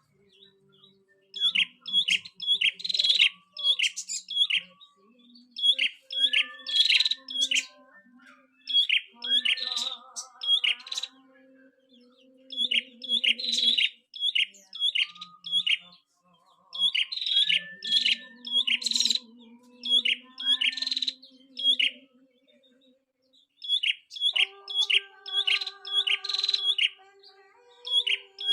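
Small caged songbird singing in repeated bursts of rapid, sharp, high chirps, each phrase a second or two long, with short pauses between.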